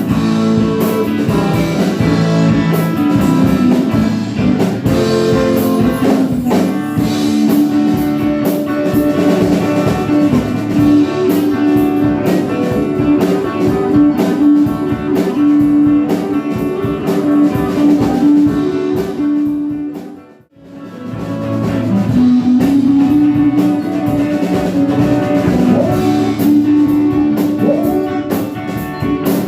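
Music with guitar and drum kit playing at a steady level; it drops out for a moment about two-thirds of the way through, then comes straight back.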